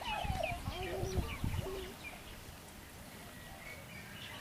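Birds calling, short curving calls and chirps mostly in the first half, over a low rumbling noise that dies away after about a second and a half.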